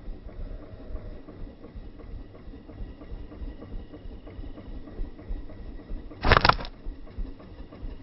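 A slingshot shot: one sharp, loud snap of the released rubber bands about six seconds in, over a steady low rumble.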